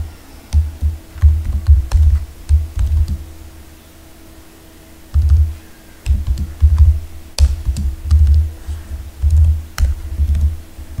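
Typing on a computer keyboard: irregular runs of keystrokes heard as heavy low thumps with sharp clicks, pausing for a second or so partway through before resuming.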